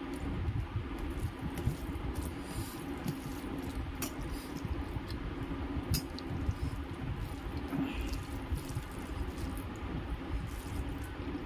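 A hand kneading and mashing cooked rice with curry on a steel plate: a soft, wet squishing, with a couple of sharp clicks.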